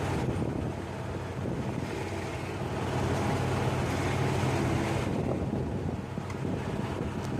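An engine running steadily with a low, even hum, while wind buffets the microphone.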